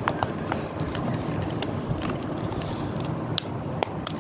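Scattered small plastic clicks and taps as an old mobile phone's casing and parts are handled, over a steady low background rumble.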